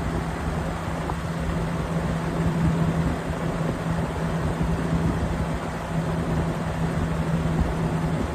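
Lasko 20-inch box fan (model 3723WMC) running steadily: an even rush of moving air with a steady low hum.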